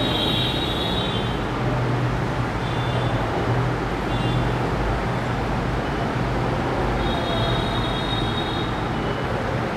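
Steady background noise with a low hum and faint high whistling tones that come and go.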